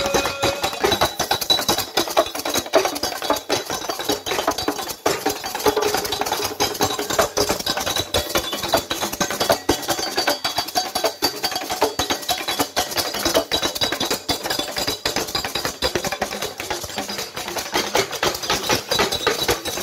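Live Yoruba drumming: a dense, fast run of drum strokes with no let-up, with a few faint held tones above it.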